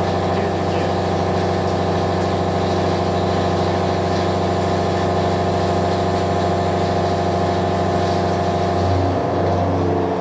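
Kitamura Bridgecenter-6G #40 double-column CNC machining center running with a steady mechanical hum made of several fixed tones. The tones shift about nine seconds in.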